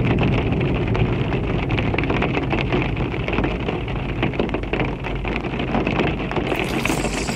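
Electronic ambient track built on a dense rain-like crackle of drops over a steady low drone. About six and a half seconds in, the hiss brightens as the high end opens up.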